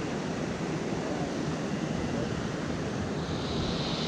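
Steady rushing of water from a spillway outflow. A higher hiss joins it about three seconds in.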